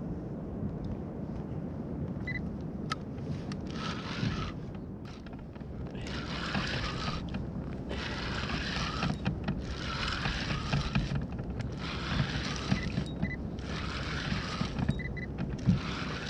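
Spinning reel being cranked in short spurts, a whirring of about a second roughly every two seconds, as line and lure are wound in. A steady low rumble of wind and water lies underneath.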